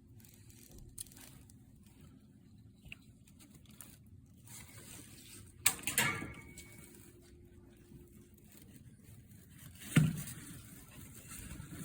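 Quiet handling of the blind's headrail and parts, with two sharp knocks about halfway through, the second leaving a brief ring, and a louder knock near the end.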